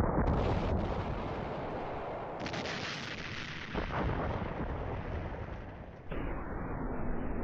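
Booms like artillery fire, each fading into a long rumble, with a new boom every two to three seconds and a sharper one about four seconds in.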